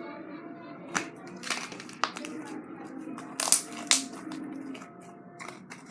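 Slime being handled and squished by hand, giving a few sharp pops and clicks, the two loudest close together just past the middle, over a faint steady background sound.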